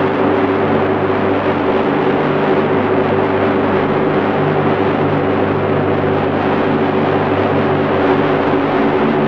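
Electronic drone music: a loud, steady wash of noise with several low tones held beneath it, one of them flickering on and off.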